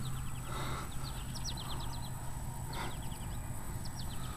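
Birds chirping in short, quick runs of high notes, several times over, above a low steady hum.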